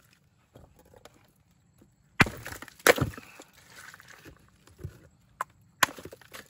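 Ice chunks being knocked and cracked in a styrofoam cooler packed with shrimp: a few sharp knocks, the loudest about two and three seconds in and two more near the end, with quieter clattering of ice between.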